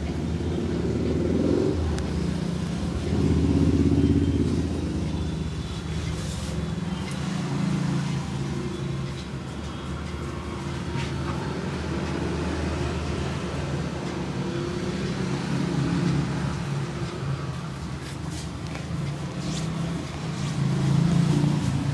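Street traffic: vehicle engines running as a steady low rumble that swells and fades several times as vehicles pass, with a few faint clicks.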